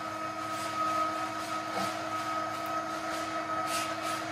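Litter-Robot 3 drum motor running as the globe slowly rotates through a cleaning cycle to sift clumps out of the litter. It is a steady motor hum with a higher whine, and faint swishes of litter sliding across the screen now and then.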